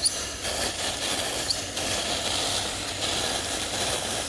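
Can of minus-60-degree freeze spray hissing as it is sprayed in a steady jet onto a little water, with a couple of brief dips in the hiss.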